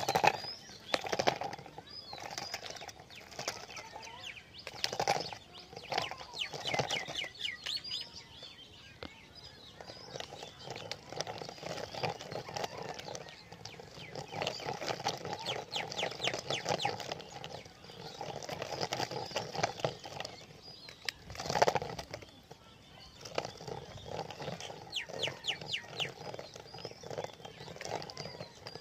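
Small homemade two-wheeled RC toy car running over rough concrete: a rapid rattling buzz from its little motor and plastic lid wheels that comes and goes as it drives, with a few sharp knocks as it bumps and tips.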